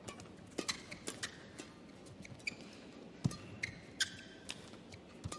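Badminton rally: sharp hits of rackets on the shuttlecock and short squeaks of court shoes on the court mat, with a heavier thud a little past halfway.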